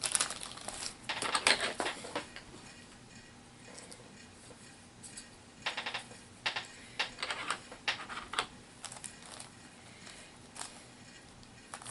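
Small plastic clicks and rustles of HeroClix miniatures and their booster packaging being handled, in irregular bursts.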